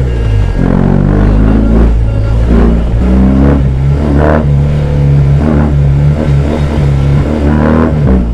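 BMW R18's big boxer twin engine running under load on the move, its revs rising and dropping several times.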